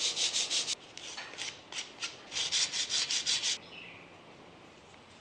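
Sandpaper rubbing back and forth by hand on a varnished walnut knife handle, smoothing the finish between coats: quick, even strokes in three short runs that stop about three and a half seconds in.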